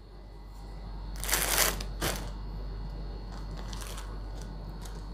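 Rustling as clothing is handled: a burst of rustling about a second in, a click about two seconds in and fainter rustles later, over a steady low hum.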